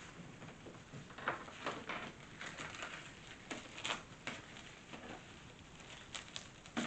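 Plastic wrapping crinkling and rustling in short, scattered bursts as it is pulled off.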